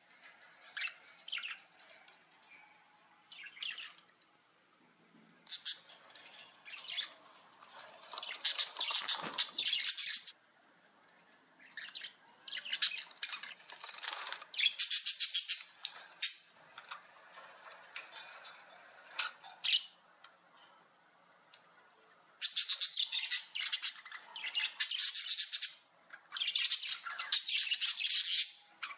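A bird chirping and chattering in repeated bursts of rapid high trills, each lasting one to three seconds, with short pauses between.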